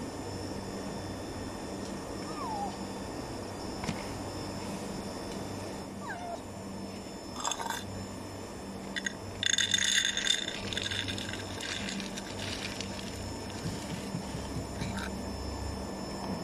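Dry cat food poured from a plastic scoop into a bowl, a rattling burst about ten seconds in, with shorter rattles just before it. A cat mews faintly twice earlier, over a steady low hum.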